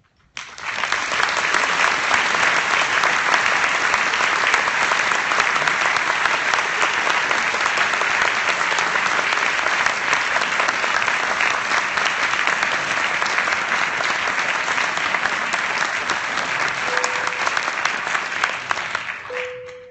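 Audience applauding: loud, steady clapping that starts about half a second in and dies away near the end.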